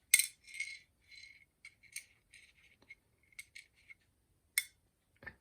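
A Zippo lighter flint dropped into a flint half pipe: a sharp click as it lands, then a run of small light ticks and rattles as it rolls and bounces along the pipe, with another sharp click about four and a half seconds in.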